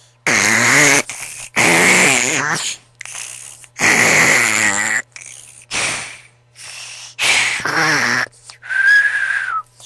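Loud snoring: a run of about six noisy breaths roughly a second long each, some with a wavering pitch, and a thin high whistle-like tone on one breath near the end.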